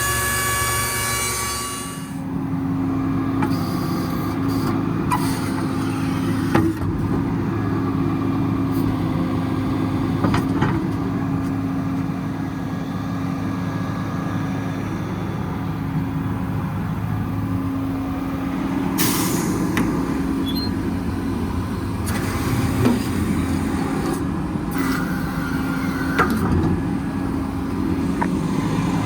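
Cummins ISL 8.9 diesel in a Freightliner M2 running steadily, with a few sharp clicks and a short burst of air hiss about 19 seconds in.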